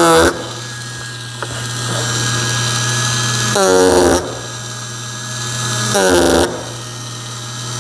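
Ryobi 4V USB power carver running steadily, with three louder stretches near the start, about three and a half seconds in, and about six seconds in, as the chisel bites into pine and the tone shifts under load.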